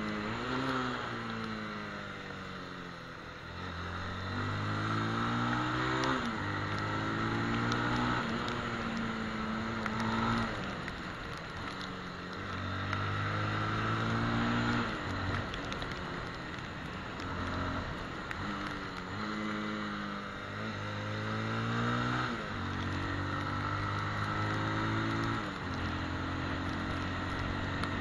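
Sport motorcycle's engine pulling hard, its pitch climbing and stepping down several times as it shifts up, then falling away as the rider backs off for corners, over a steady hiss of wind and tyres on the wet road.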